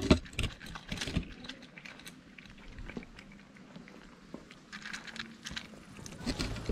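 Cats crunching dry kibble close up, a run of small irregular crunches and clicks, with one loud thump right at the start.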